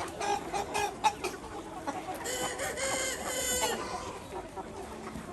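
Ho chickens clucking, and a rooster crowing once a little after two seconds in, one long call of about a second and a half.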